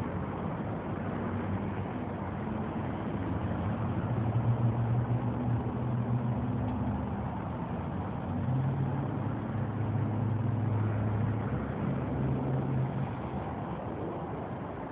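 Road traffic going by: a low engine hum swells and fades twice, about four seconds in and again from about eight to thirteen seconds, over a steady rushing background noise.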